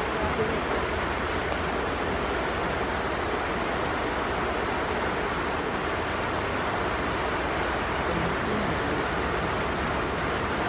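Fast mountain stream rushing over rocks, a steady, even roar of white water.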